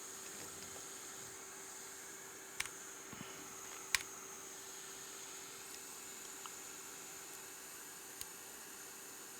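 Quiet workbench room tone: a steady electrical hum and hiss, broken by a few small sharp clicks, the loudest about four seconds in.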